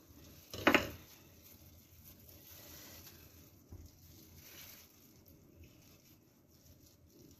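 Quiet, soft sounds of a kitchen knife slicing sushi rolls through nori and rice on a plastic-wrapped wooden cutting board, with one short, loud sound about a second in.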